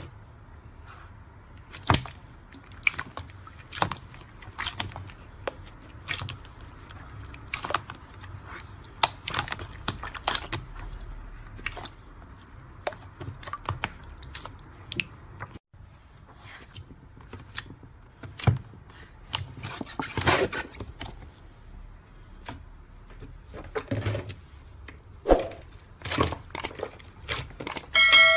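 Hands pressing and kneading slime: irregular sharp crackling clicks and squelchy pops as air pockets burst. First it is clear slime in a plastic tub, then glossy metallic slime being stretched and folded. Near the end a short bell-like chime rings out.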